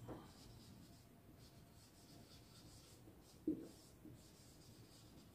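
Faint strokes of a marker writing on a whiteboard, with a brief low sound about three and a half seconds in.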